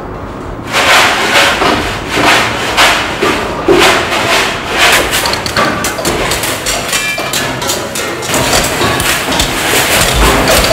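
Loud, rapid knocking and banging that starts suddenly less than a second in and keeps going.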